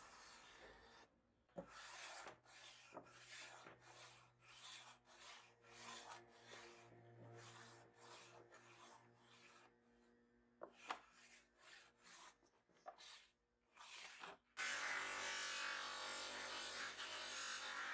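Gloved hand rubbing across a finished oak surface in repeated short strokes. Near the end this cuts suddenly to a bench buffing wheel running steadily and louder, polishing a brass fitting.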